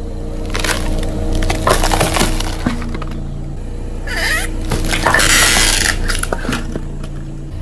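A car tyre rolling over and crushing painted superhero head figures: a string of cracks and crunches as they give way, the loudest crunch about five seconds in, over a steady low hum.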